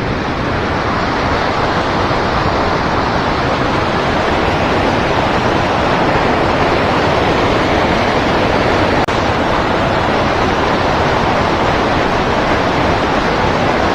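Steady, loud rush of flowing river water, even and unbroken except for a brief dip about nine seconds in.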